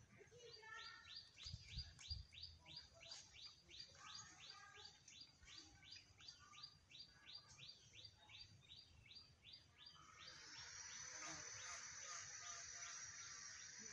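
Faint bird calling: a rapid series of short, high notes, each sweeping downward, about three a second. About ten seconds in the notes stop and a steady high-pitched buzz takes over.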